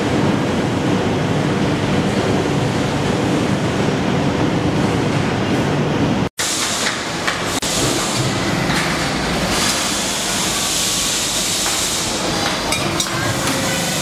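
Steady factory-floor machinery noise, a dense wash of hum and hiss. About six seconds in it cuts off sharply and gives way to a brighter, hissier shop-floor noise with scattered clicks and clatter.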